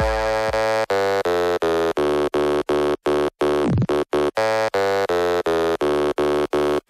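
Electronic dance music: a synth chord chopped into short, even stabs, about three a second, with a falling swoosh in the middle.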